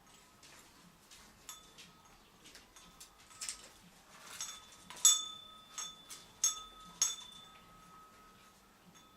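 A small metal bell on a parrot toy being knocked about and ringing in a series of sharp strikes, each leaving a clear ringing tone, the loudest about five and seven seconds in.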